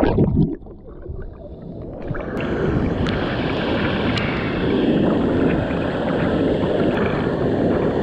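Rushing water of a waterfall stream; about half a second in the sound drops and goes muffled, then the steady rush builds back up from about two seconds in.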